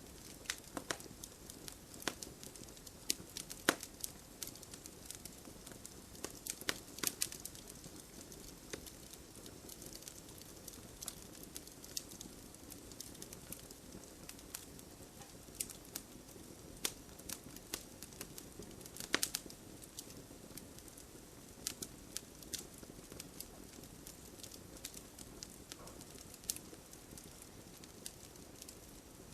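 Fire crackling: irregular sharp pops and snaps, a few louder than the rest, over a soft steady hiss.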